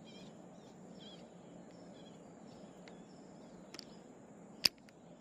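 Birds chirping faintly over quiet outdoor ambience, with a few small clicks and then one sharp click about four and a half seconds in.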